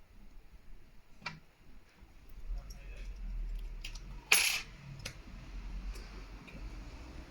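Light, sharp clicks and taps of small parts and tools as a Samsung A70's motherboard is fitted and its connectors pressed home, a few scattered clicks with the loudest about four seconds in. A faint low hum comes in under them about two and a half seconds in.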